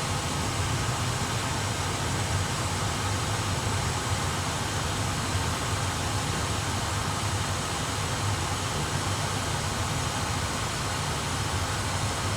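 Steady background noise in an A320 flight simulator's cockpit: an even hiss with a low hum, with no distinct events.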